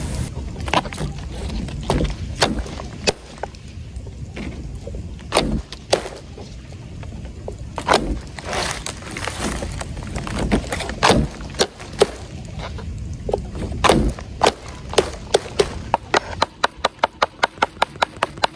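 Chopping strikes on a wooden board: scattered single chops, then near the end a quick, even run of about three to four chops a second.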